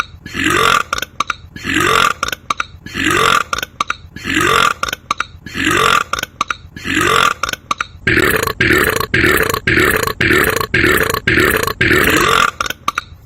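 Man's burps repeated at a very even pace, each with a rising pitch: about one every 1.2 seconds, then about twice as fast from about 8 seconds in.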